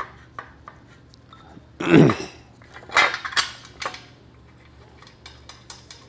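Metal clinks and rattles of steel parking-brake shoes and their hardware being handled and their bolts started by hand, with one heavier clunk about two seconds in.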